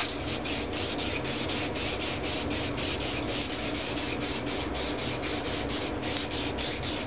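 Aerosol spray-paint can being shaken, its mixing ball rattling inside in an even rhythm of about five strokes a second.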